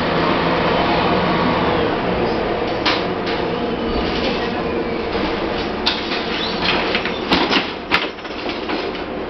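Interior noise of a moving IVECO TurboCity 480.12 city bus: steady engine and road noise with the cabin fittings rattling. The engine's low note fades about two seconds in, and a handful of sharp knocks and clacks come in the second half.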